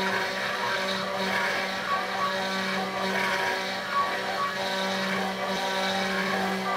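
Genmitsu ProVerXL 6050 CNC router's spindle running steadily while its 1/8-inch bit cuts a circle into a wooden board. A steady motor hum with a scratchy cutting noise over it.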